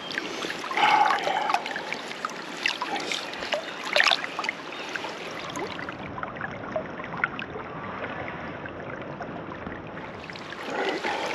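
Creek water trickling and splashing close to the microphone, with scattered small knocks and clicks; the loudest come about one second in and about four seconds in.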